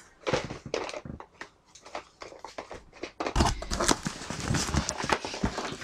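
Handling noise of small clear plastic storage boxes with clip-on handles, clicking and knocking against each other and the cardboard box as a tray of them is lifted out, with a louder cluster of knocks about three and a half seconds in.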